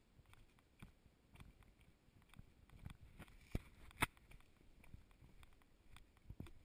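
Faint footsteps on a dirt trail, a soft knock roughly every half second, with two sharper knocks a little past the middle.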